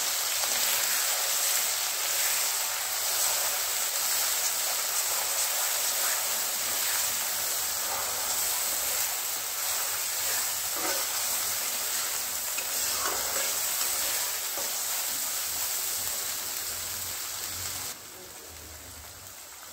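Onion, tomato, garlic and ginger masala paste sizzling in hot oil in a kadhai as it fries, with a few scrapes of a steel spatula stirring it. The sizzle drops off abruptly near the end.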